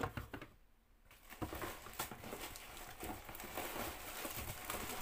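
Cardboard box flaps and plastic packaging rustling and crinkling as items are pulled out of the box. There is one sharp click at the start and a short lull, then steady crackling from about a second and a half in.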